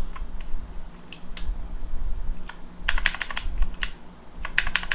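Kemove 60% mechanical keyboard being typed on: a few scattered keystrokes, then two quick bursts of rapid clacking keys about three and four and a half seconds in.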